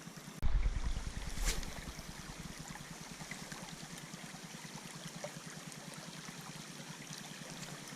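Creek water running steadily. About half a second in, a sudden low rumble fades out over about a second, and a sharp click follows shortly after.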